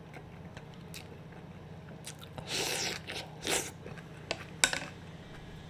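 Close-miked chewing of a mouthful of tomato and onion salad: quiet for the first two seconds, then a few louder chewing bursts, with two sharp clicks near the end.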